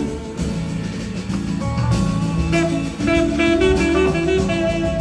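Live blues-rock band playing: electric guitars over a drum kit, with a held melodic line coming in about two and a half seconds in and the band growing louder from about three seconds in.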